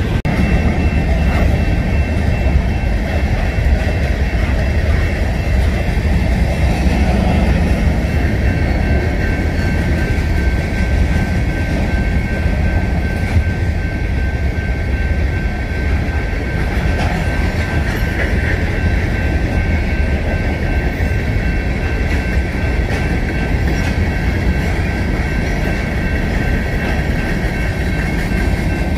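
Empty covered hopper cars of a frac sand freight train rolling steadily past: a continuous rumble and clatter of wheels on rail, with a steady high ringing tone above it.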